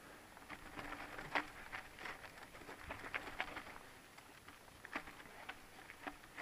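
Mountain bike rattling and its tyres crunching over a rocky dirt trail at slow speed: an irregular string of sharp clicks and ticks.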